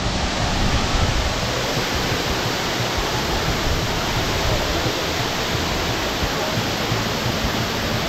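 Waterfall's water rushing steadily, an even hiss with a low rumble beneath it.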